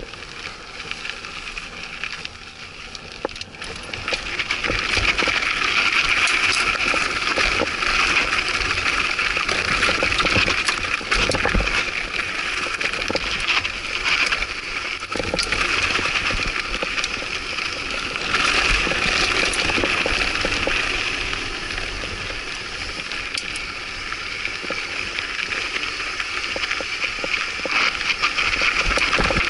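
Mountain bike descending a steep, rough dirt trail: tyres crunching over dirt and rock with a constant rattle and knocking from the bike. It is quieter at the start and gets much louder about four seconds in as the descent picks up speed.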